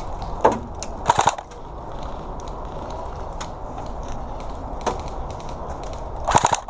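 Airsoft guns firing: a short rapid burst about a second in, scattered single pops, then a fast full-auto burst starting near the end.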